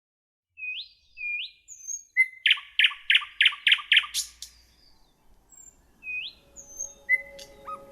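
A songbird singing: a couple of short rising whistles, then a run of loud, evenly spaced chirps at about three a second. After a pause of about two seconds the phrase starts over near the end.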